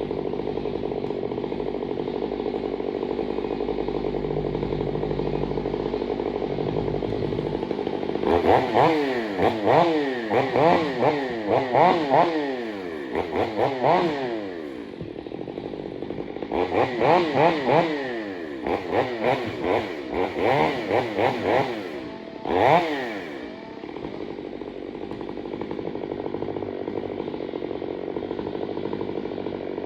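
Stihl 500i two-stroke chainsaw idling, then revved up and down in many quick blips in two runs from about 8 s to 23 s, then settling back to idle.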